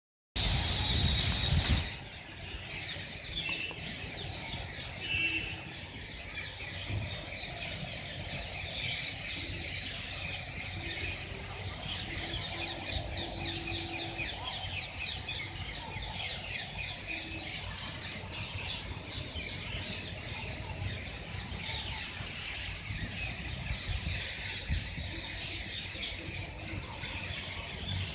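Indian ringneck parakeet calling: a loud, shrill squeal for about the first two seconds, then a long run of rapid, high chirping.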